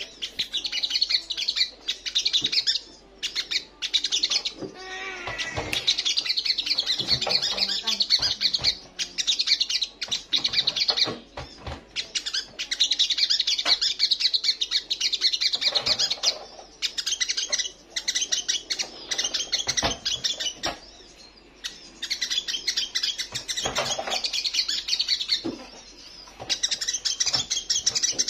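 Olive-backed sunbird singing: long runs of rapid, high twittering, several seconds each, broken by short pauses, with a few lower notes mixed in.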